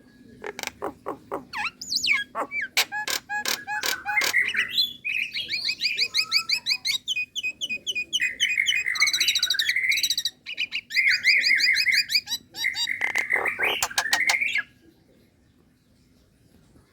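Female Nias hill myna calling to a male: a long run of sharp clicks and whistled notes, fast rattling trills and warbles, which stops suddenly near the end.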